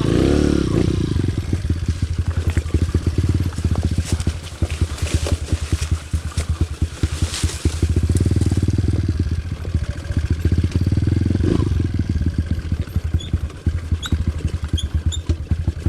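Dirt bike engine running at low revs with a rapid even beat, the revs swelling briefly twice in the second half.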